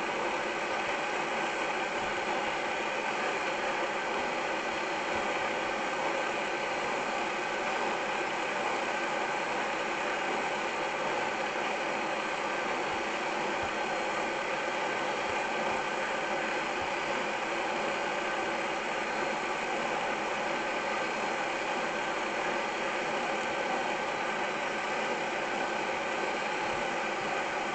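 Steady, even running noise of a passenger train in motion, holding level throughout.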